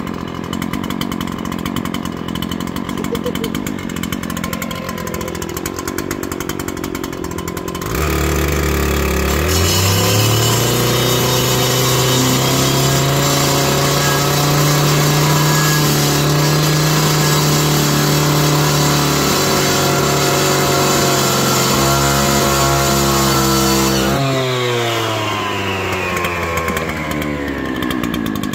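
A power tool's motor starts about eight seconds in, spins up, and runs at a steady pitch for about fifteen seconds. It then switches off and winds down, falling in pitch over a few seconds. Quieter machine noise comes before it, with a brief falling whine.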